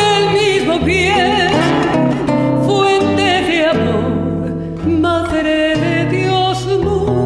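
A woman singing a slow song with wide vibrato, accompanied by acoustic guitar.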